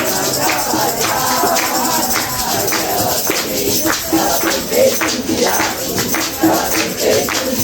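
An Umbanda ponto de cigana (gypsy chant) played with singing over a steady rhythm of jingling hand percussion.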